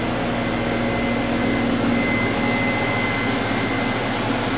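Green-YAG-pumped dye laser rig running: a steady machine whir from its cooling and power equipment, with a low hum and a thin, steady high whine that gets stronger about two seconds in.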